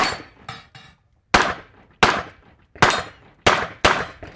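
A string of handgun shots: six loud reports, irregularly spaced about half a second to a second apart, each with a short echo trailing off, and fainter cracks between the first two.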